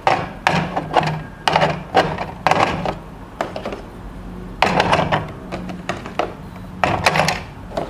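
Plastic clipper attachments and a white packaging tray being handled and set in place: a string of irregular clicks, taps and rustles.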